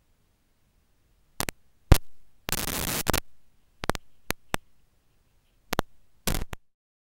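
Trail camera audio: after a silent start, a string of sharp crackles and two short bursts of static hiss, with dead silence between them.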